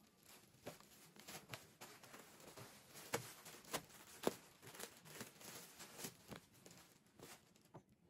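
Irregular light clicks, taps and rustling of household things being handled, with a few sharper knocks about halfway through.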